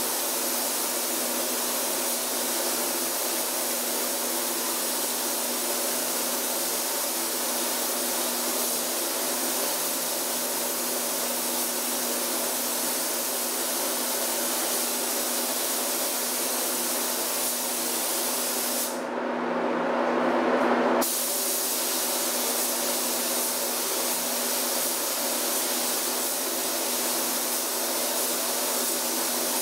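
Gravity-feed air spray gun hissing steadily as it atomizes paint, over a steady machine hum. About two-thirds of the way through, the hiss turns duller and a little louder for about two seconds, then returns.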